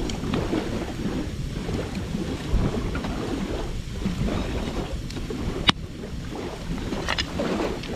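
Wood campfire burning, with scattered sharp crackles and pops and one loud pop about two-thirds of the way through. Under it runs a steady low rumble of wind on the microphone.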